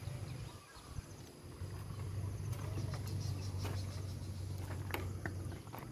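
Outdoor ambience dominated by a steady low hum that drops out about half a second in and returns a second later, over faint insect chirring, with a few light knocks near the end.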